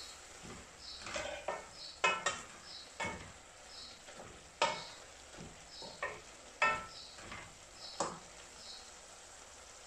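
Wooden spatula stirring wet chopped beans and carrots in a stainless steel pan, with about eight irregular scrapes and knocks against the pan, some ringing briefly.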